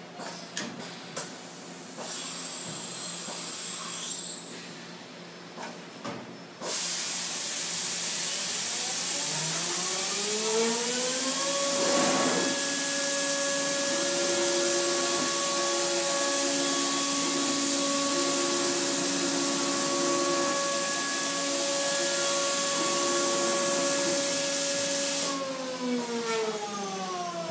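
Industrial machine running: a few clicks, then a loud hiss comes on suddenly, and over it a motor whine climbs in pitch for a few seconds and holds steady. Near the end the hiss cuts off and the whine falls away as the motor runs down.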